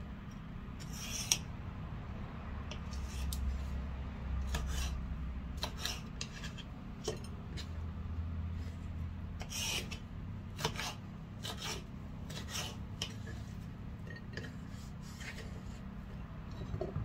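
Kitchen knife slicing through a red bell pepper on a wooden cutting board: short crisp cuts and blade taps on the board at irregular intervals, over a steady low hum.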